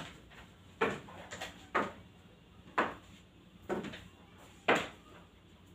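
Slow footsteps on a hard floor, one sharp step about every second, six in all.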